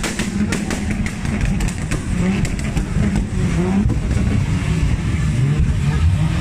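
MK4 Toyota Supra revved hard with a free-flowing, really loud exhaust, the engine note rising and falling, with sharp exhaust pops in the first second or two.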